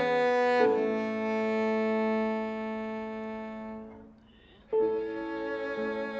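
Solo cello bowed in a slow passage: a long held note fades away about four seconds in, and after a brief pause the cello starts a new phrase.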